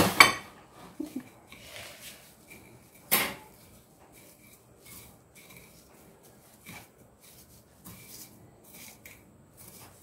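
A metal utensil scraping and tapping on a plate as it works breadcrumbs over fish, with soft gritty scrapes through the crumbs. There is one sharper knock about three seconds in.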